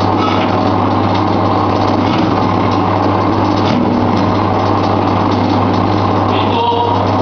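Commercial twin-roller meat shredder running with a loud, steady motor hum as pieces of cooked meat are fed into its toothed drums.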